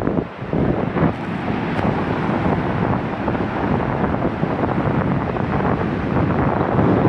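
Steady wind buffeting the microphone over the wash of surf and moving water.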